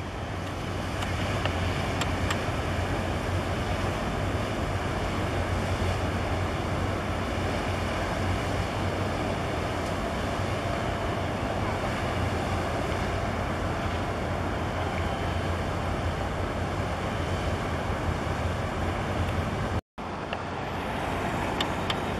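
Low steady drone of a boat engine over wind and water noise. Near the end the sound cuts out for an instant, and after it the drone is weaker.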